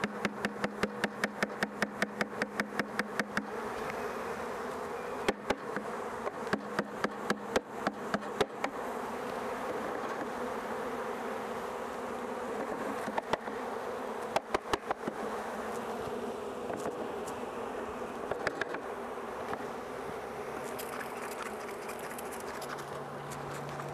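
A mass of honeybees buzzing steadily, with runs of quick sharp taps, about four a second, at the start, a few seconds in, and again around the middle.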